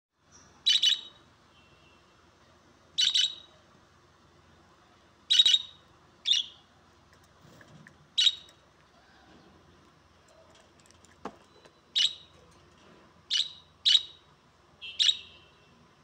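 Budgerigars giving short, sharp chirps, about nine in all at uneven gaps of one to two seconds, some in quick pairs. A faint single click about eleven seconds in.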